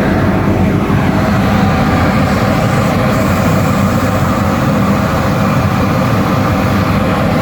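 2000 HP drilling rig drawworks running: a loud, steady machinery rumble with a constant whine over it.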